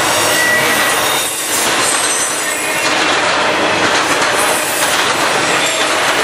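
Intermodal freight train's trailer and double-stack container cars rolling past: a loud, steady rumble and rattle of steel wheels on rail, with a few brief high-pitched wheel squeals.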